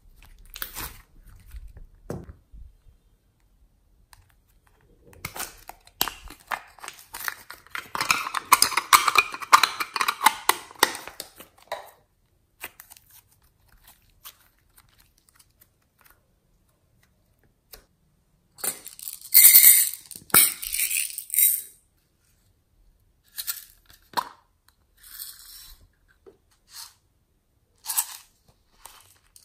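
Glossy slime being squeezed, pressed and stretched by hand, giving sticky, crackling pops and clicks in bursts with quiet gaps between. The longest, loudest run of crackling comes about a third of the way in, with a shorter, sharper burst a little past the middle.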